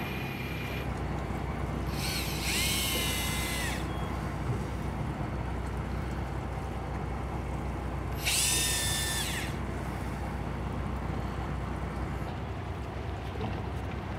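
Shimano ForceMaster electric fishing reel's motor whining as it winds in line, in two spells about six seconds apart, each rising in pitch as it starts and then holding steady. Beneath it runs the steady low hum of the boat's engine.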